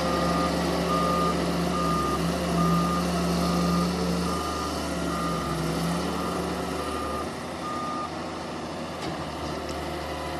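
Wheel excavator's travel alarm beeping at a little over one beep a second over its diesel engine running. The beeping stops about eight seconds in, and the engine note drops at about the same time.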